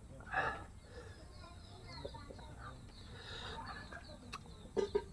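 Chickens clucking, mixed with the soft sounds of someone eating rice and curry by hand, with a short louder sound just after the start.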